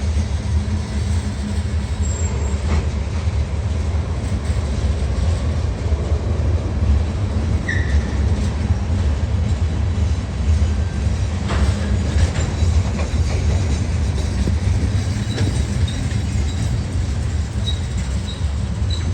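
CSX diesel locomotives running with a steady low rumble, with a few short high squeaks near the end.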